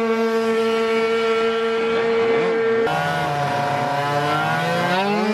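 Racing scooter engines revving while staged for a drag-race launch. At first one engine is held at a steady high pitch; about three seconds in the sound changes to engines wavering up and down in pitch, then climbing sharply near the end.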